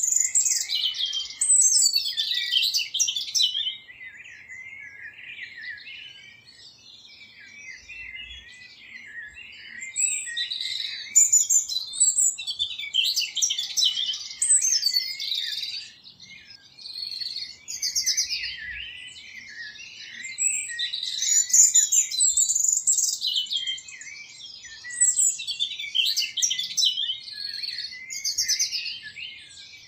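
Songbirds chirping and singing, many high phrases overlapping, coming in louder spells a few seconds apart.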